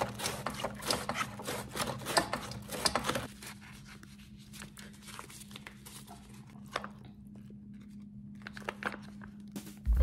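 Cabbage being shredded on a plastic mandoline slicer: rapid scraping strokes of the blade through the leaves for about three seconds. The strokes then stop, leaving only a few light clicks over a low steady hum.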